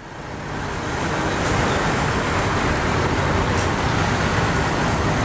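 A heavy vehicle's engine runs steadily, fading in over the first second.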